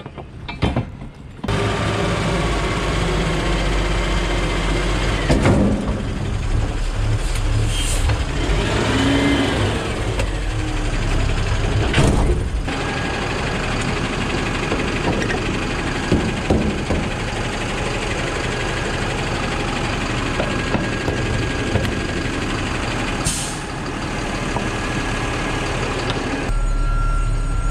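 Diesel engine of a yard truck (yard goat) running steadily as it works the trailer yard, coming up loud about a second and a half in. A few short hissing bursts cut through it three times.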